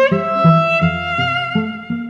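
Background music: a violin melody over a repeating low accompaniment.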